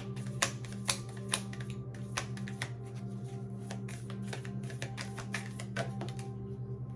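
Tarot cards being shuffled and handled: a quick, irregular run of crisp clicks and snaps that thins out after about six seconds. Under it, soft ambient background music with a steady low drone.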